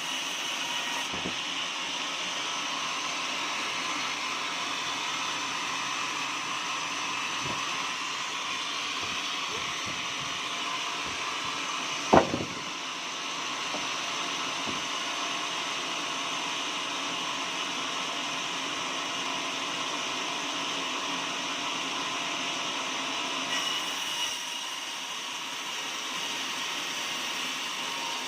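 Sawmill machinery running steadily, a continuous mechanical hum with a held whine, and one sharp knock about halfway through.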